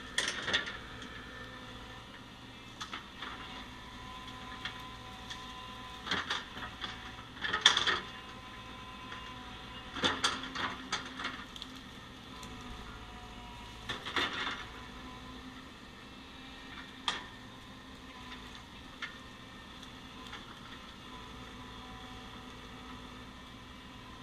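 Heavy engine running steadily, with clusters of sharp knocks and cracks every few seconds as wood stumps are loaded into a truck bed. The loudest clatter comes about eight seconds in.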